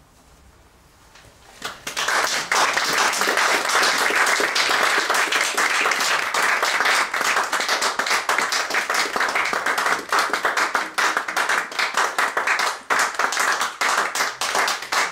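Audience applauding, breaking in suddenly about two seconds in after near silence and continuing steadily.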